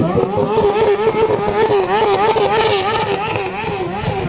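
Motorcycle engine revved up and held at high revs, its pitch wavering up and down a few times a second as the throttle is worked.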